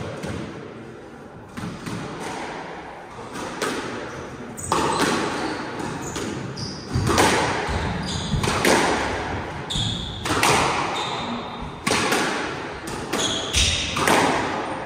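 Squash rally: the ball smacking off rackets and the walls about every one to two seconds, each hit echoing around the enclosed court.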